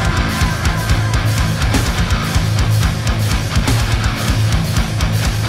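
Heavy metal music: electric guitar playing over a steady, driving beat.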